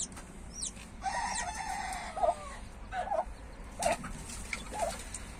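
Newly hatched chicks peeping in thin, high, falling chirps, while a rooster crows once about a second in, followed by a string of short clucks from adult poultry.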